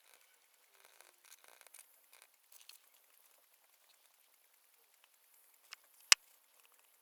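Faint scratching and rustling of pen and paper at a study desk, in short scattered strokes, then a sharp click about six seconds in.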